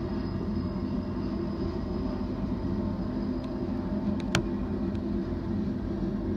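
BNSF manifest freight train passing, a steady low rumble, with one sharp click about four seconds in.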